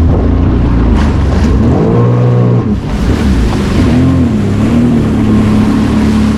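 Sea-Doo personal watercraft engine running on the water, its pitch rising and falling a couple of times as the throttle is worked, with wind buffeting the microphone.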